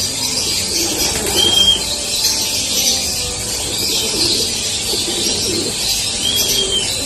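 Racing pigeons cooing in their loft, soft repeated low coos, over a steady high hiss. A short high chirp sounds about a second and a half in and again near the end.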